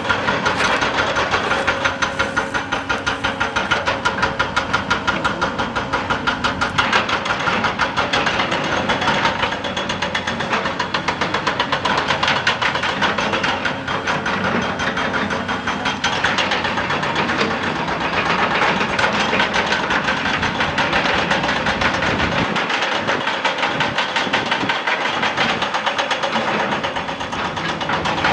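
Excavator-mounted hydraulic rock breaker hammering at rock, a fast, steady stream of blows several a second.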